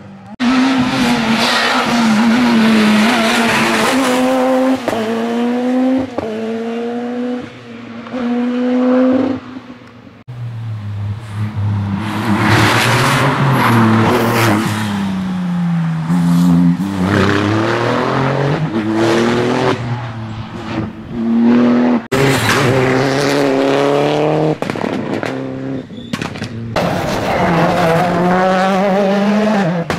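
Rally cars driven at racing speed, one after another: the engine note climbs in quick steps through upshifts and falls back on the downshifts. The sound breaks off abruptly several times as one car's pass gives way to the next.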